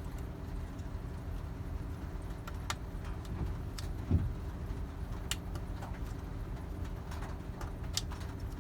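Light clicks and taps of small parts being handled, with a single soft thump about four seconds in, over a steady low hum.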